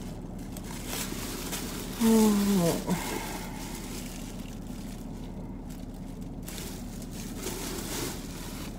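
A thin plastic dry-cleaning garment bag rustling faintly as the jacket inside it is handled and moved. About two seconds in, a woman gives a short hum that falls in pitch.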